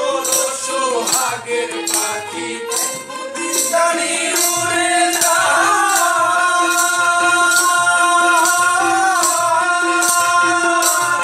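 A man singing a Bengali song in full voice over a hand drum and jingling percussion, with a steady drone beneath. From about four seconds in he holds one long high note that glides down near the end.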